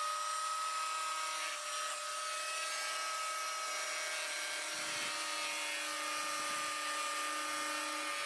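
Electric power tool with a drill-like motor running at a steady, high whine that holds one pitch, with a faint low rumble coming in about halfway through.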